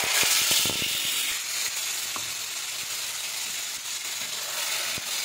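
Hot oil in a frying pan sizzling hard as a wet paste of chopped tomato, garlic and dalle chilli goes in, loudest at first, then settling into a steady frying hiss with scattered pops.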